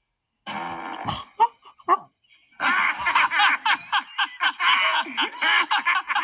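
Two animated film characters laughing hard together, played back from a TV screen. A few short, scattered noises come first, about a second in, and the laughter starts about two and a half seconds in.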